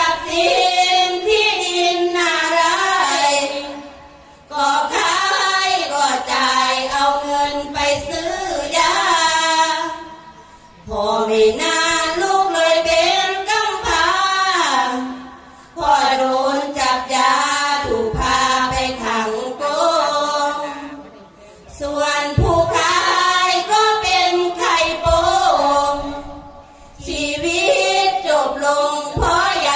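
A group of women chanting sarabhanya, the Thai Buddhist devotional verse sung unaccompanied in unison, in long melodic phrases of about five seconds with short breaks for breath between them.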